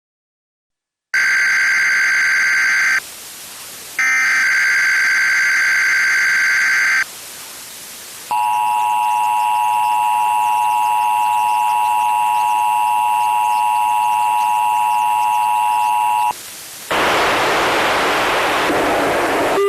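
Emergency Alert System test tones: two bursts of the SAME digital header data tone, about a second apart, then the steady two-tone EAS attention signal held for about eight seconds. A broad steady hiss follows near the end.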